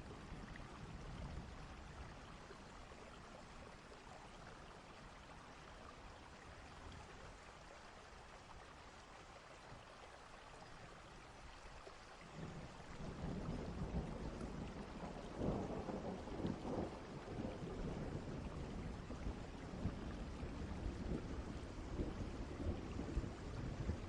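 Distant thunderstorm ambience: a steady hiss of rain, with a low roll of thunder building about halfway through, loudest a few seconds later, and rumbling on to the end.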